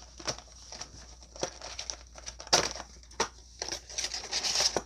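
Trading card booster box packaging being handled, with the cardboard and wrapping rustling and crinkling in short bursts. A louder crinkle comes about two and a half seconds in, and a longer rustle near the end.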